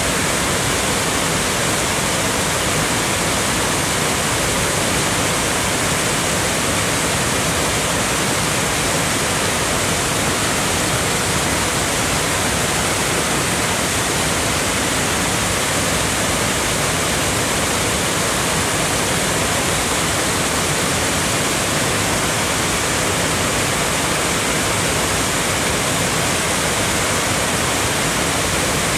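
Waterfall pouring over wide rock ledges in a creek: a steady, unbroken rush of water.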